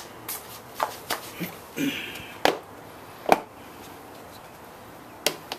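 Handling of a scooter's plastic body panels and parts: a string of sharp knocks and clicks at uneven intervals, with a short scrape about two seconds in and the loudest knock a little past three seconds.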